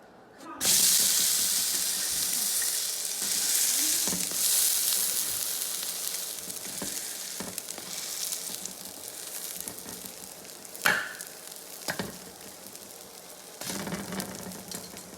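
Uttapam batter (dosa batter with shredded carrot) sizzling on a hot pan. The sizzle starts suddenly and loudly about half a second in, then slowly dies down. Near the end come a couple of sharp utensil clicks and a fresh surge of sizzling.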